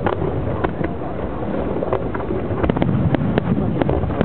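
Fireworks display: a dense, continuous rumble of bursts, with sharp cracks at irregular moments throughout.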